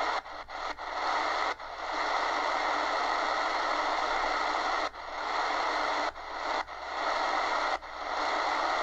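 Shortwave static hissing from the Eton Executive Satellit's speaker, tuned in AM mode around 3.68 MHz with no station coming through. The hiss drops out briefly about ten times as the tuning is stepped, each time coming back up within a moment.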